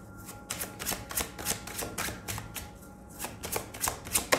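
A deck of tarot cards being shuffled by hand: a quick, even run of card-on-card clicks, about five or six a second.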